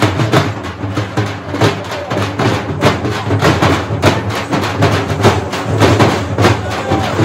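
A band of stick-beaten festival drums played together in a fast, driving teenmaar rhythm, a dense run of strikes with no pause.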